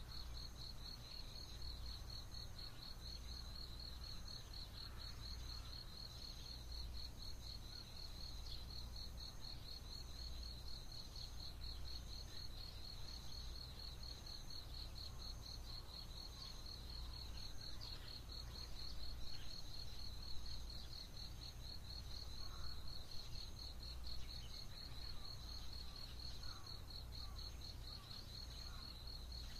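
Dawn chorus of insects: one keeps up a steady, rapidly pulsed high trill while another repeats a slower, higher pulsed note. Faint, distant bird calls come in mostly in the second half, over a steady low rumble.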